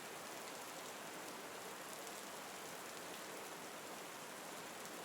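Steady, soft rainfall: a continuous hiss of rain falling on leaves and surfaces.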